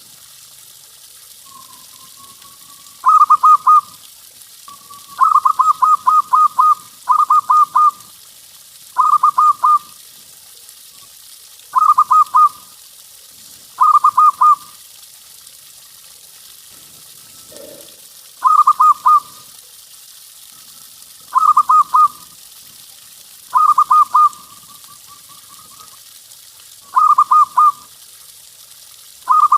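Zebra dove (perkutut) singing: short phrases of rapid rolling coos, repeated every two to three seconds, some led in by a soft rising note. A faint steady hiss runs under it.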